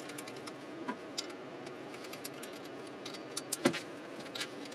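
Light metallic clicks and taps of bolts and hand tools being handled on an engine and workbench, with one louder knock about three and a half seconds in.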